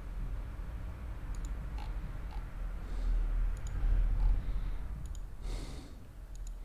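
Computer mouse clicking: three short, sharp clicks about every two seconds, over a low steady hum.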